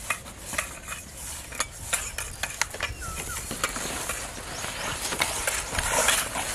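Irregular light clicks and knocks of people handling containers, with one short chirp about three seconds in.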